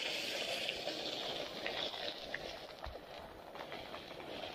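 Heavy rain falling, with water splashing on the street: a steady hiss that eases a little past the middle.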